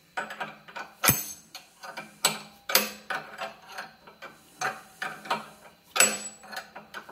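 A hand wrench turning the forcing screw of a steel bearing puller in short strokes to draw a bearing out of a drill-press spindle sleeve: irregular metallic clicks and clanks as the wrench bites and is refitted on the bolt head, with one sharp clank about a second in.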